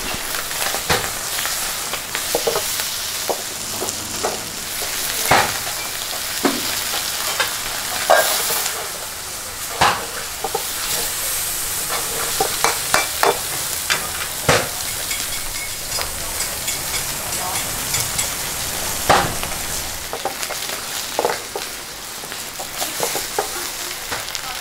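Chicken and wide rice noodles sizzling in a steel wok over a high flame, with a metal ladle scraping and knocking against the wok at irregular intervals as the food is stir-fried.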